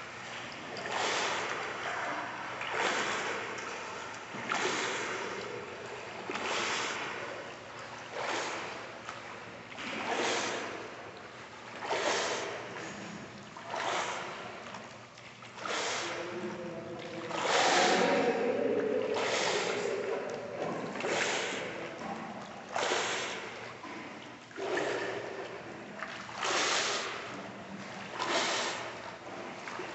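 Water splashing in a steady rhythm, about one splash every two seconds, as a person does jumping jacks standing chest-deep in a swimming pool, with a longer, louder stretch of splashing about two-thirds of the way through.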